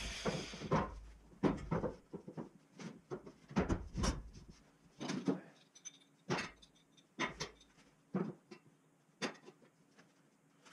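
Irregular knocks, clicks and clatter of wood and steel parts and tools being handled and set down on a workbench, with a longer scrape just after the start.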